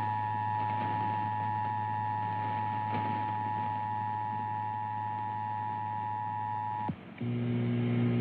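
Emergency Alert System two-tone attention signal: a steady dual tone, which cuts off about seven seconds in. After a brief pause a lower, buzzing tone with several pitches at once starts.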